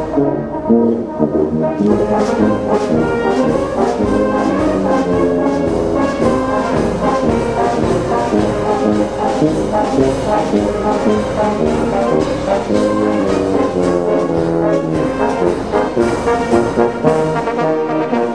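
Brass band playing, held brass notes over a steady drum beat.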